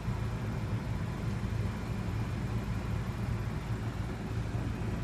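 Steady low rumbling background noise, with a faint constant hum and no sudden claps or bangs.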